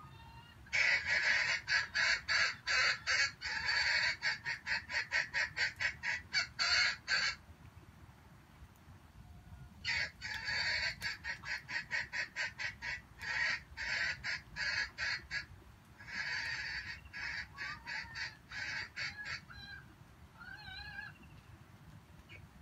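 Junglefowl calling: three runs of short, harsh clucking notes, each run speeding up toward its end.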